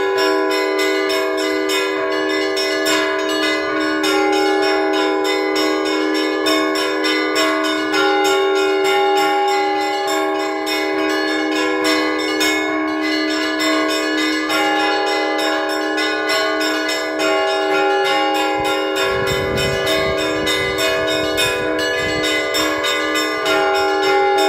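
Orthodox church bells rung by a bell-ringer in a fast, unbroken peal: smaller bells struck several times a second over the steady ringing of the others, calling parishioners to the Sunday service.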